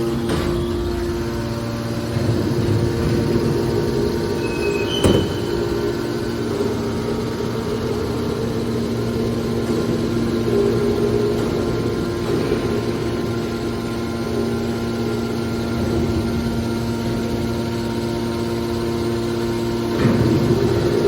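Hydraulic scrap-metal baler running: a steady hum from its motor and pump, with a sharp knock about five seconds in and a thud near the end.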